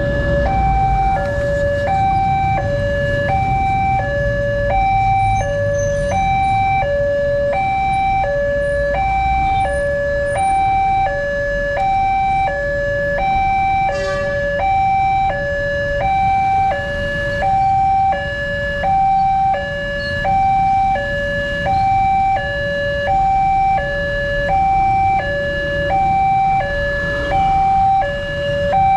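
Railway level-crossing warning alarm sounding, an electronic two-tone signal switching steadily between a higher and a lower pitch, each held for under a second, warning of an approaching train. Low rumble of motorcycle and truck traffic underneath.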